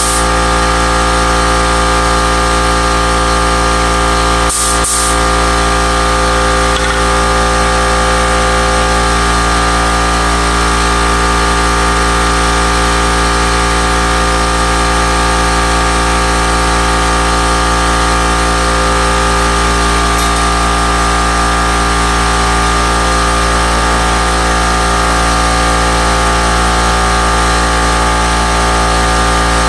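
A motor-driven machine running with a steady hum that does not change. There are two short clicks about four and a half seconds in.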